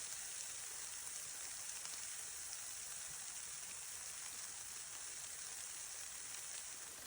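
Faint, steady high-pitched hiss with no distinct strikes or clicks.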